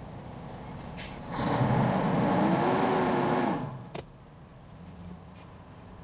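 A vehicle engine revs up for about two seconds, holds, then drops back to a low idle, with a sharp click soon after.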